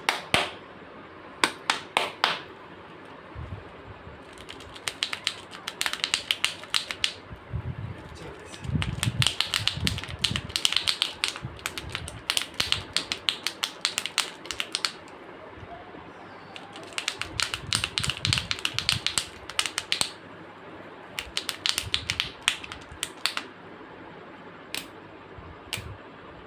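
Kinder Joy plastic eggs and their wrappers being handled and opened: bursts of rapid clicking and crackling, some a second or two long, with a few soft thumps between.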